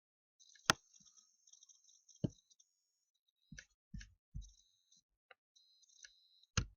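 Computer mouse clicking a few times, sharp single clicks spaced a second or more apart, with a few softer knocks between them, over a faint high-pitched background hiss.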